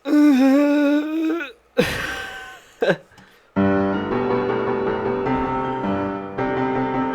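AI-generated music clip: after a wavering held voice-like note and a single hit, steady electric-piano chords sound, changing every second or so and cutting off suddenly at the end.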